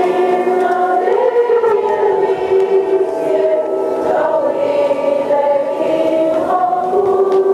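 A congregation singing a hymn together, several voices holding long notes that change about once a second.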